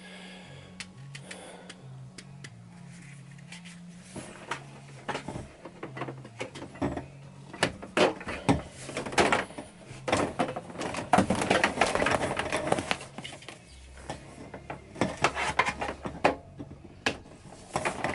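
Plastic water pipes being handled and pulled about: scattered rustling, knocks and clicks, busiest from about eight to thirteen seconds in.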